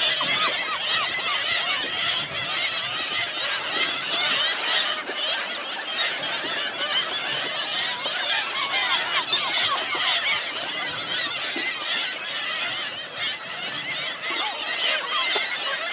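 A large flock of hungry gulls calling all at once: a dense, continuous clamour of many overlapping short cries with no pauses.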